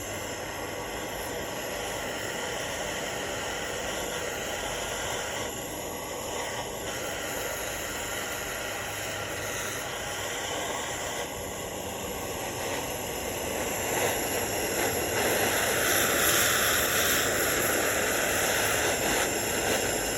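Handheld gas torch flame hissing steadily as it heats aluminum so a low-temperature brazing rod will melt onto it, growing louder for the last several seconds.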